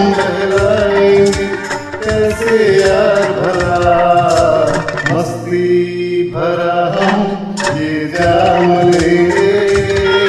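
Instrumental interlude of a Hindi film song's karaoke backing track: a melody over a steady percussion beat, the beat dropping out briefly about halfway through.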